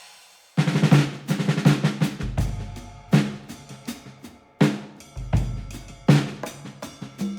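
Background music: a drum-led beat with kick and snare hits and deep bass notes, starting about half a second in.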